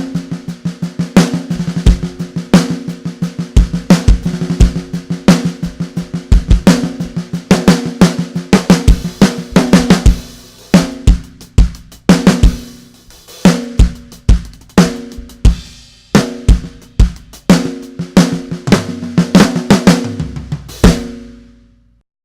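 Drum kit played, a busy groove on a Ludwig Black Beauty snare drum with bass drum and rolls, its strokes ringing. The playing thins out about halfway, then stops near the end on a last hit that rings out for about a second.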